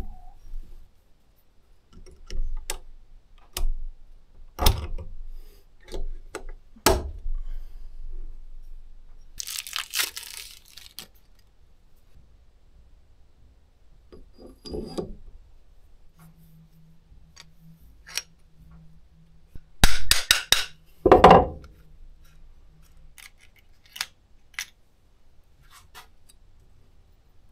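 Small metal gearbox parts (ball bearings, a cast housing and a shaft) clinking and knocking as they are handled and set down on a wooden workbench. The clicks are scattered and irregular, the loudest near the end, and there is a short rustle about ten seconds in.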